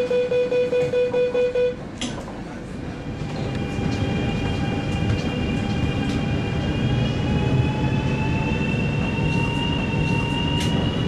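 Rapid electronic warning beeps, about four a second, that stop about two seconds in, followed by a knock, typical of a train's door-closing signal and doors shutting. Then the CRH high-speed electric train pulls away: its traction motors whine and slowly rise in pitch over a low rumbling as it gathers speed.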